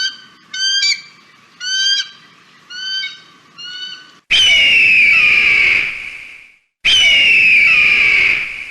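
Bird of prey calling: a run of five short, sharp calls that each slide down in pitch, then two long, loud, harsh screams of about two seconds each, falling slightly in pitch.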